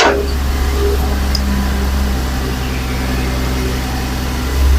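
Heavy diesel engine of earthmoving equipment running steadily with a low, even drone.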